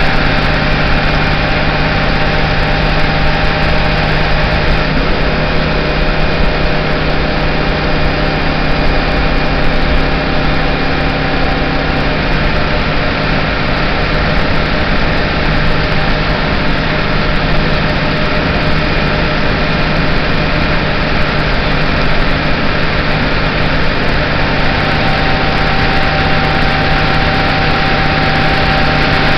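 City bus engine running steadily under way, heard from inside the passenger cabin with the engine hatch open, mixed with road noise. A steady low hum runs under a higher whine that drops away about a third of the way in and comes back near the end.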